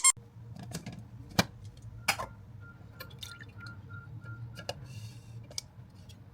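A few sharp clicks and light knocks, as of kitchen items being handled, over a low steady hum, with a faint run of short, even beeps at one pitch in the middle.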